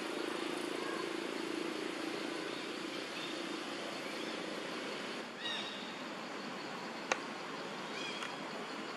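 Outdoor ambience: a steady hiss with the low drone of a distant engine, which fades about halfway through. Then come two short high chirps and a single sharp click.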